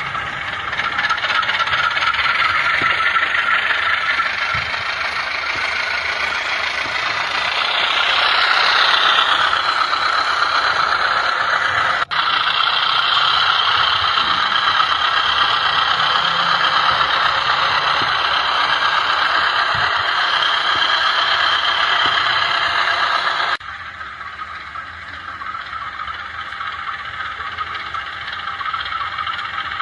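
Model of a KAI CC206 diesel locomotive running along its track: a steady rattling hum of the small motor and wheels. It breaks off for an instant about twelve seconds in and turns clearly quieter a little after twenty-three seconds.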